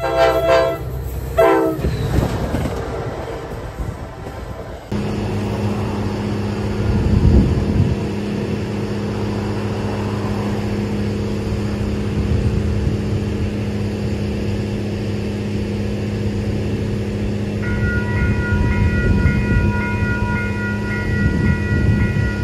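A train horn sounds twice briefly. A steady low hum follows, and near the end a railroad crossing's electronic warning bell starts ringing, about two dings a second, as the crossing signals activate.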